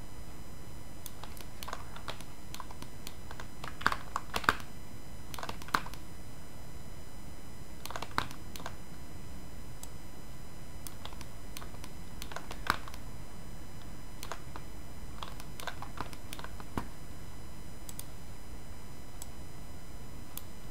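Scattered clicks of a computer keyboard and mouse, a handful close together about four seconds in and then single clicks every few seconds, over steady microphone hiss.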